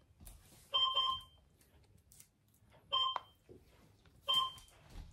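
Toy robot dog giving short electronic beeps, three bursts a second or two apart, as it responds to a button pressed on its remote control.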